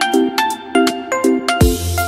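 Electronic background music: a melody of short notes over repeating chords, with a deep bass and a drum beat coming in about one and a half seconds in.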